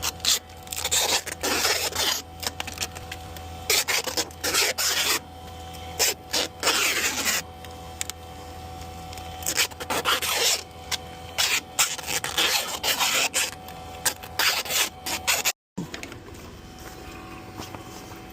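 Irregular runs of rasping, scraping strokes from hand work with a tool on a part, over a steady low hum.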